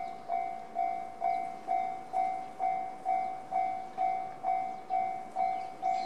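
Japanese railway level-crossing warning bell in the JR standard tone, an electronic ding repeating steadily a little over twice a second, each strike fading before the next: the crossing is activated for an approaching train.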